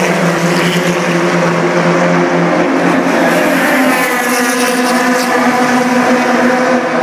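Touring car racing engines at high revs as cars pass flat out, several engine notes overlapping in a loud, steady drone.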